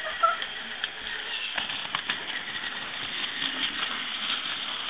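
Small electric motor of a battery-powered toy train engine whirring steadily, with a few sharp plastic clicks in the first two seconds as the engine and track are handled.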